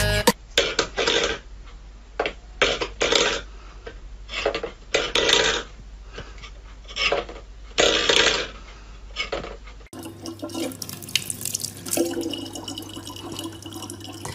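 Stainless steel bowls clattering and scraping on a wooden floor in a series of short, irregular knocks. About ten seconds in, a kitchen tap starts running in a thin, steady stream into a plastic bottle.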